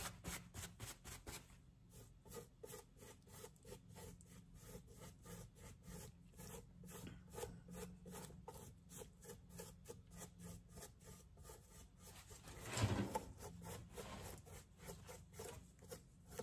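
Stiff chip-brush bristles dry-brushing over a latex mask, a faint scratchy rubbing in quick back-and-forth strokes, about three or four a second. One brief louder noise comes about three-quarters of the way through.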